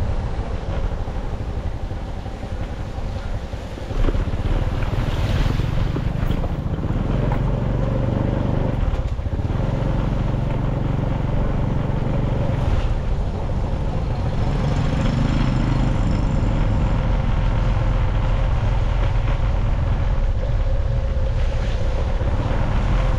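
Engine of a moving vehicle running steadily, with heavy wind rumble on the microphone as it rides along.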